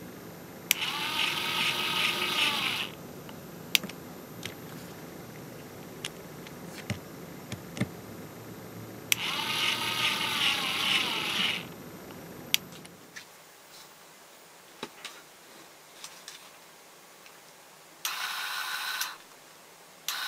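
Homemade cordless screwdriver's small motor whirring in two runs of about two seconds each as it turns tiny screws in a phone's back plate, with light clicks of the bit and screws being handled between. Near the end the motor runs once more, briefly, with a steadier whine.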